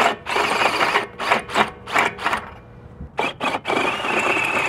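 Cordless drill reaming out a slightly undersized bolt hole in a cast sway bar mount to take a half-inch bolt: the bit cuts the metal in rough, uneven bursts, then after a short pause the drill runs steadily with a whine.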